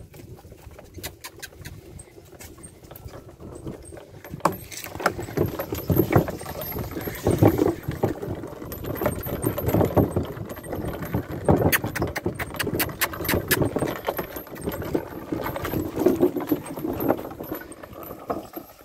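A mule's hooves clip-clopping on a dirt track while the wooden cart it pulls knocks and rattles behind it, the harness chains jingling. The knocking gets louder about four seconds in.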